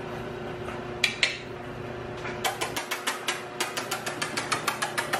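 French bulldog puppies' claws clicking and tapping on a hard tile floor as two puppies scuffle and play-fight. There are two sharp clicks about a second in, then an irregular quick run of clicks, several a second, from about halfway.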